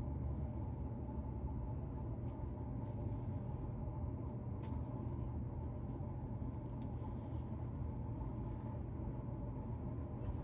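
Fingernails scratching through a beard, heard as faint, irregular scratchy rasps and ticks over a steady low hum.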